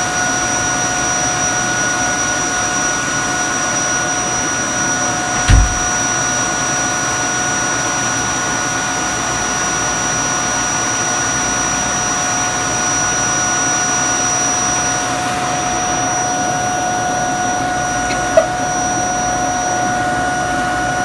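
Vacuum cleaner running steadily with a high whine. One loud thump comes about five seconds in, and a sharp click near the end.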